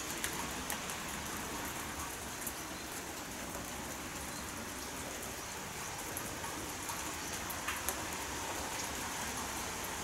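Rain falling steadily: a constant hiss with scattered sharp ticks of drops striking.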